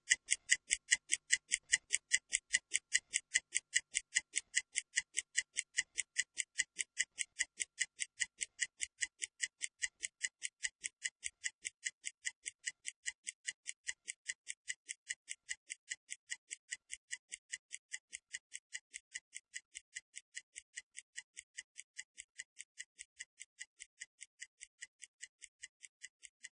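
Stopwatch ticking sound effect timing a 30-second rest interval: rapid, even ticks that slowly grow fainter.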